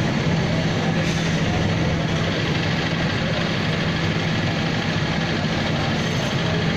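An engine idling steadily, a constant low hum over even background noise.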